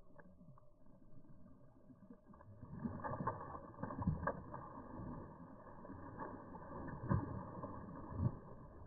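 Water sloshing and splashing with irregular knocks around a small boat, louder from about three seconds in.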